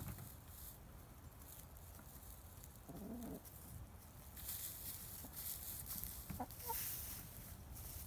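Buff Orpington hens clucking softly: one drawn-out low cluck about three seconds in and two short higher calls near the end. Under the calls is a light rustle as the hens scratch and peck in dry straw.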